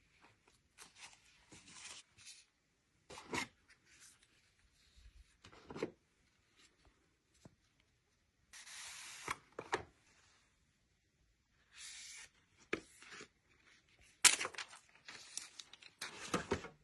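Intermittent handling noises: short rustles, scrapes and clicks, with near-silent gaps between them.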